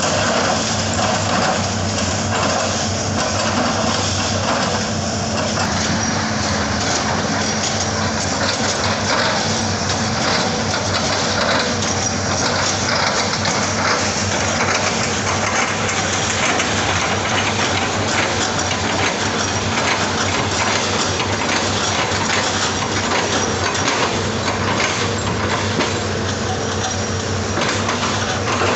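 Hitachi excavator's diesel engine running steadily, with a dense, rapid rattling and clicking over the engine hum.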